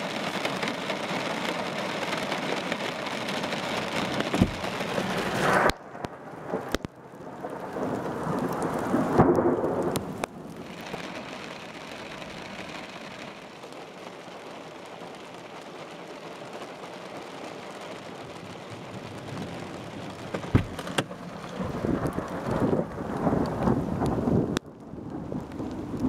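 Thunderstorm: steady heavy rain on window glass with rumbling thunder that swells twice. The sound breaks off abruptly a few times, and there are a few sharp knocks.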